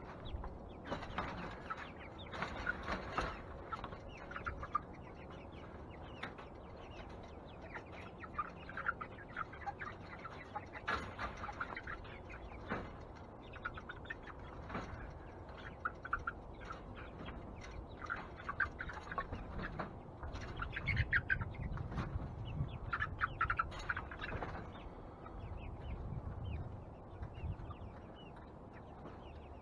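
Chickens calling in many short, repeated calls: chicks peeping and hens clucking. From about twenty seconds in there is a low rumble with some knocks as the wire chick cage is handled.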